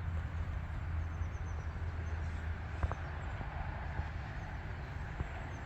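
Steady low rumble of outdoor background noise, with a single sharp click a little under three seconds in.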